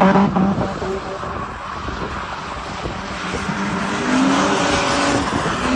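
Datsun car's engine revving hard during stunt driving, its pitch rising and falling and climbing again near the end, with a rushing haze of tyre noise that grows louder in the second half.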